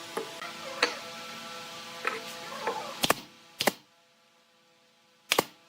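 Irregular sharp knocks and clicks, about eight in all and loudest near the middle and end, over a steady hum. A hiss underneath cuts off about four seconds in.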